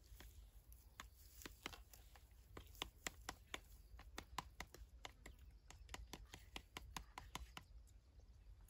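Faint, irregular clicking of a spoon and fork against plastic plates during eating, several clicks a second, over a low steady rumble.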